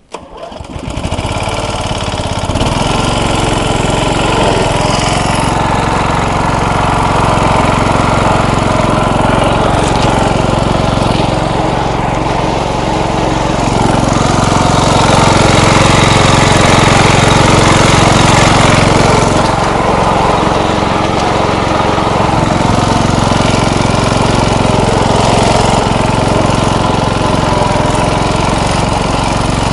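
MTD riding lawn mower's engine running under throttle as the mower is driven off-road. It comes up from quiet over the first couple of seconds, then runs steadily and loud, growing somewhat louder between about fourteen and nineteen seconds in.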